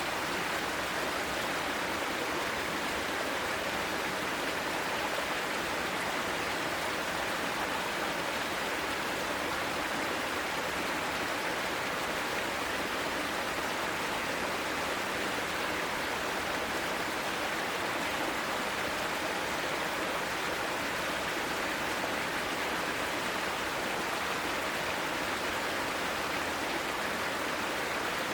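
Mountain stream rushing over mossy rocks: a steady, unbroken wash of running water.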